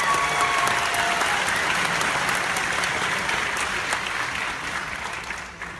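Audience applauding, with the clapping dying away near the end.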